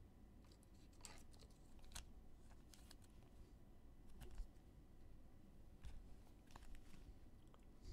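Near silence broken by a few faint, scattered clicks and taps of trading cards being handled and thumbed through a stack.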